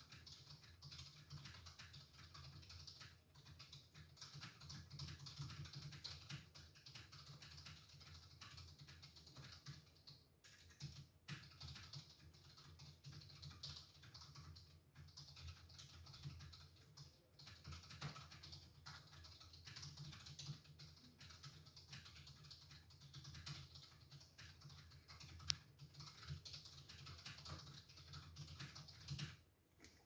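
Fast touch-typing on a computer keyboard: a quiet, continuous rapid patter of key clicks broken by a few brief pauses, with one sharper, louder keystroke about three-quarters of the way through.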